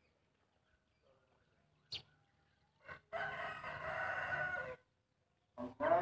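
A rooster crowing once, about three seconds in, for under two seconds, ending with a slight fall in pitch; a second crow begins near the end. A short sharp click about two seconds in.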